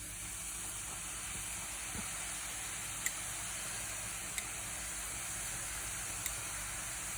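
Gram-flour sev dough strands deep-frying in hot coconut oil: a steady sizzle with a few small pops.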